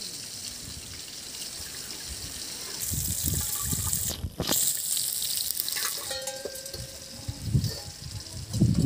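Water splashing and sloshing in an aluminium bucket as a hand is washed in it, with fish sizzling faintly in a wok alongside. There is a brief ringing tone a little past halfway and heavier knocks near the end.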